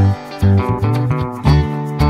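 Background music led by plucked guitar, over low bass notes that fall about twice a second.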